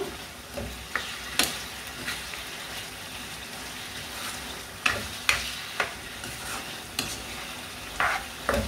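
Chicken hearts sizzling in a pan of soy and oyster sauce as the liquid cooks down, with a utensil clicking and scraping against the pan every so often.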